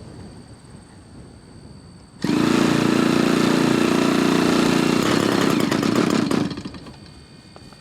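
Small 20cc gas engine of an RC airplane running at high revs, a loud buzzing that comes in abruptly about two seconds in and dies down about a second before the end.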